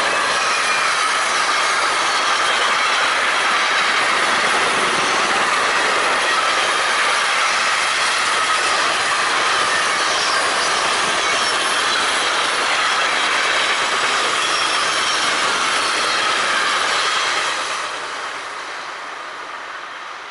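Container freight train rolling past at speed behind an electric locomotive: a steady rush of wheels on rail from the wagons, dropping away about 17 seconds in as the end of the train passes.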